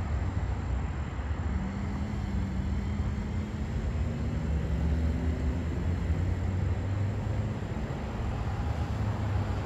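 Road traffic rumble with a vehicle engine's low steady drone through the middle; no siren is sounding.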